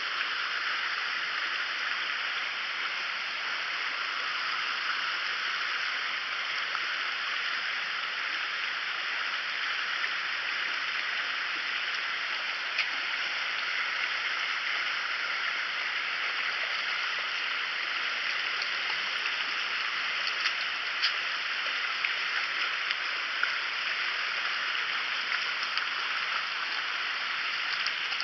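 Creek water running over rocks, a steady even rushing, with a few faint sharp ticks in the last third.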